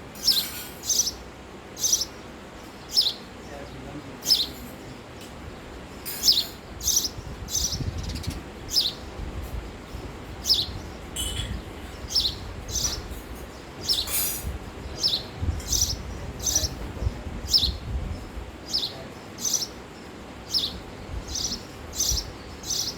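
Male house sparrow singing: a long run of short, sharp chirps repeated one or two a second at uneven spacing, with a faint low rumble beneath.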